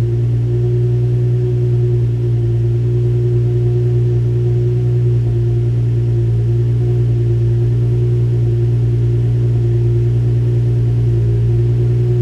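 2003 Infiniti G35 Coupe's 3.5-litre V6 idling steadily while still cold after a cold start, heard at its dual exhaust.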